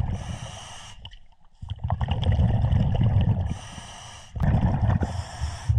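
A scuba diver breathing underwater through a regulator: a hiss as each breath is drawn, then the low rumble of exhaled bubbles, about two breaths, with a short pause a second in.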